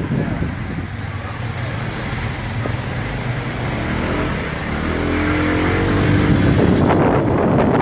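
Police pickup trucks and motorcycles driving past on a street, their engines running. A short rising whine comes about a second in, and an engine grows louder from about five seconds in as a vehicle passes close.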